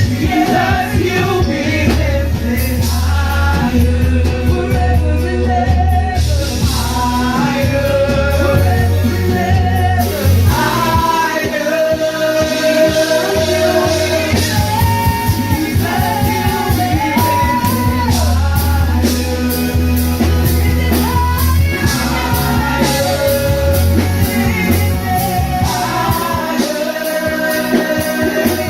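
A worship band playing a song with singing: voices carrying the melody over guitar, bass and drum kit.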